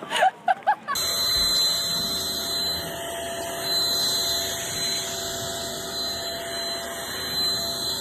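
Handheld vacuum cleaner running steadily with a high whine, starting about a second in.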